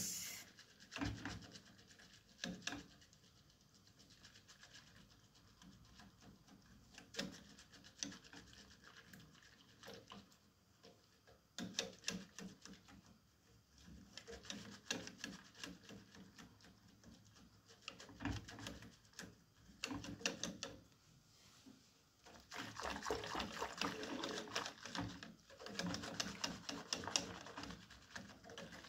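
Wire whisk clicking and scraping against the sides of an aluminium saucepan as it stirs milk: scattered light taps at first, then fast, continuous whisking for the last several seconds.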